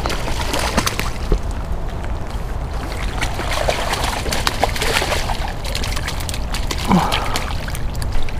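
A big hooked rainbow trout thrashing at the surface by the bank: repeated splashes over a steady low rumble.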